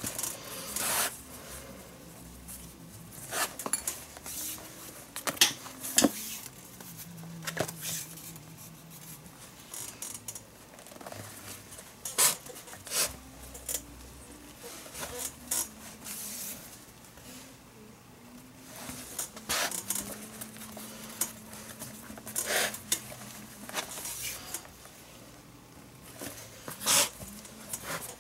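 Leather lace being pulled and worked through the lace holes of a Rawlings baseball glove during a palm-lace relace. The handling gives irregular sharp scrapes and clicks of leather on leather.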